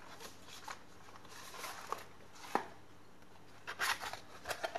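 Cardboard box and its packing insert being handled: light rustling and a few soft taps, then a quick run of sharper scrapes and knocks near the end as the insert is lifted out.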